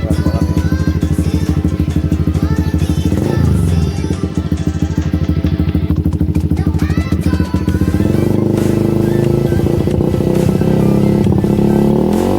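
Yamaha V-Ixion's single-cylinder four-stroke engine running through an SC Project aftermarket exhaust, idling with a quick rev about three seconds in, running harder from about eight seconds, and revved again near the end.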